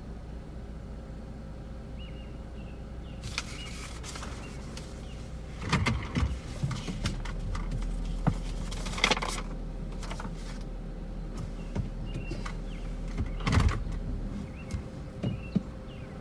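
Inside a stopped car: a steady low engine hum. From about three seconds in there is a wider hiss, and a few sharp knocks and clicks in the cabin, the loudest about six, nine and thirteen seconds in.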